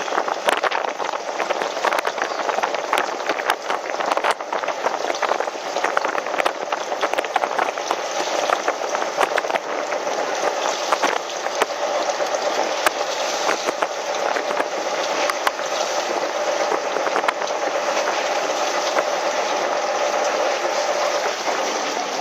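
Steady rushing, bubbling water noise around a fishing boat, full of small crackles and splashes, with a faint steady hum joining in about halfway through.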